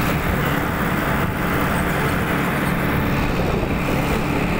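Mahindra Arjun tractor's diesel engine running steadily while driving along a road, heard from the driver's seat.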